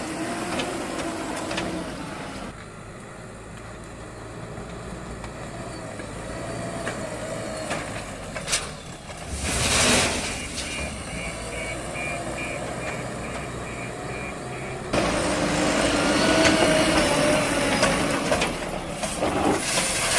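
Heavy diesel machinery running: the engines of a JCB 3DX backhoe loader and a Tata dump truck working while the truck is being loaded with mud. There is a short hissing surge about halfway through, and a repeating beep in the second half.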